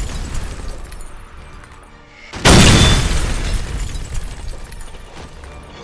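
A sudden loud boom like an explosion about two and a half seconds in, dying away over about three seconds, with the tail of an earlier blast fading at the start. Faint music plays underneath.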